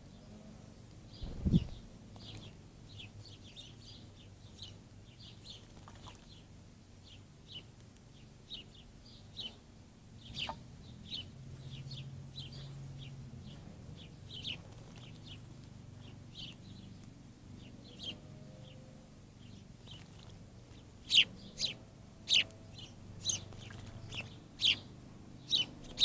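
Songbird chip notes, short and high, repeated at irregular intervals of roughly one or two a second and getting louder and sharper near the end. A low thump comes about a second and a half in.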